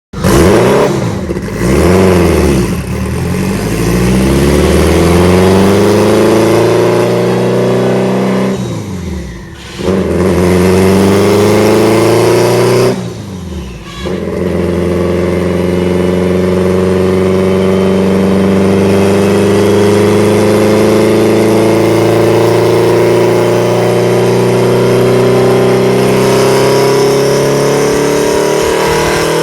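Engine of a Honda-swapped Toyota MR2 pulling hard through the gears. The revs climb, dip briefly at two gear changes about 9 and 13 seconds in, then rise slowly and steadily in a long pull.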